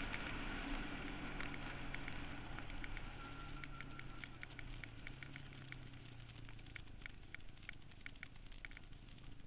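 Suzuki Quad Runner 160 ATV's single-cylinder four-stroke engine running at low revs, muffled and growing gradually quieter. Many light ticks sound over it throughout.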